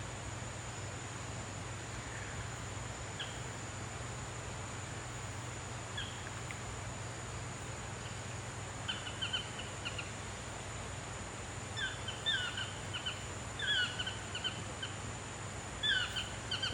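Repeated short chirping animal calls in quick clusters, starting about halfway and getting more frequent toward the end, over a steady hiss and a thin, steady high whine.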